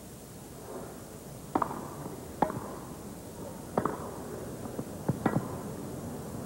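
Tennis rally: a racket hitting a tennis ball back and forth, five or six sharp strikes about a second apart, some with a short ringing ping.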